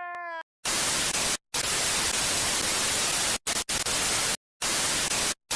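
Loud TV static hiss, cutting out briefly to silence about four times as the picture glitches. Just before it, a man's drawn-out crying wail is cut off about half a second in.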